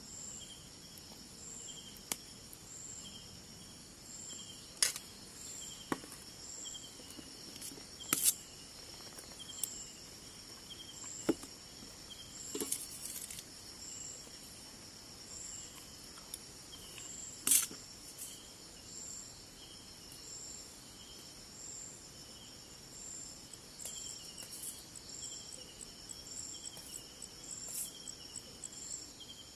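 Night insect chorus of crickets: steady high-pitched trilling that pulses regularly, with a lower pulsing call beneath it. A few sharp clicks and taps come through now and then, the loudest about two-thirds of the way in.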